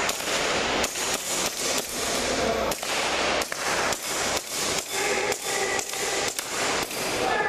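Airsoft pistol firing a quick, steady string of sharp shots, about two to three a second.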